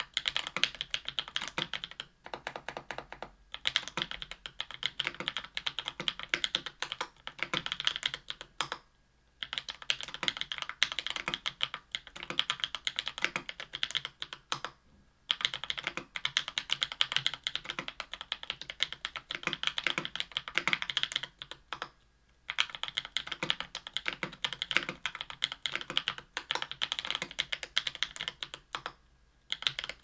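Typing on a KBDfans Tofu 65% aluminium keyboard with Everglide Dark Jade Black tactile switches lubed with Krytox 205g0, on an aluminium plate with GMK keycaps: a dense stream of keystrokes, broken by short pauses about every six or seven seconds.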